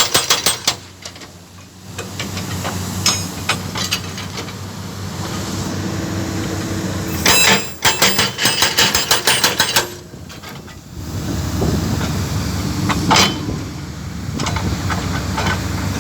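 Excavator-mounted hydraulic breaker hammering concrete in bursts of rapid blows: a short burst at the start, a longer one about halfway through and a brief one near the end, with the excavator's diesel engine running steadily between bursts.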